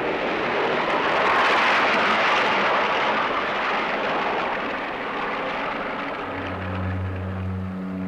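Rush of water pouring over a weir, a dense loud hiss that cuts in suddenly and slowly fades. About six seconds in, a low sustained musical drone comes in beneath it.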